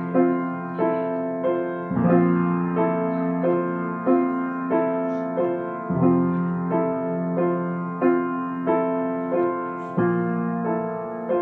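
Piano playing a riff in F major: a repeated three-note harmony over chords that move between F and B flat, with notes struck at an even pace of about three every two seconds.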